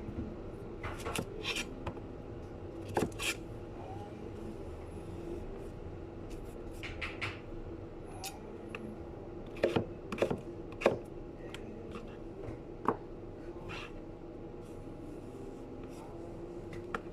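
Irregular knocks and clicks of hand work at a sushi prep counter, such as utensils and a knife against a board, over a steady low hum.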